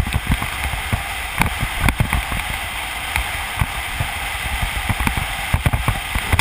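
Wind rushing over the camera microphone and the street luge's urethane wheels rolling on asphalt at speed, with irregular low buffeting thumps.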